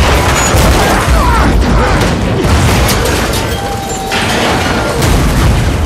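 Film sound of a truck smashing into a moving passenger train and its wreckage grinding along beside and under the cars: repeated crashing and banging with metal scraping and short screeches, set over the rumble of the train.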